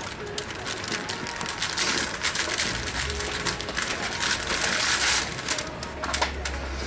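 Cellophane flower wrapping rustling and crinkling as it is handled, loudest in the middle stretch.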